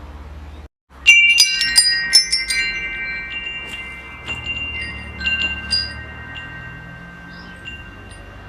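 Wind chimes ringing: after a brief drop in the sound, a cluster of quick strikes comes about a second in. Sparser strikes follow a few seconds later, the chime tones ringing on and slowly fading over a steady low hum.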